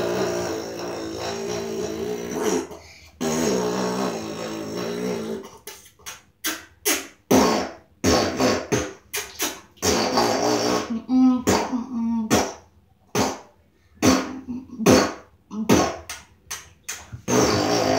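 Loud fart-like buzzing noises: a long drawn-out one, a second shorter one, then a rapid, uneven string of short blasts.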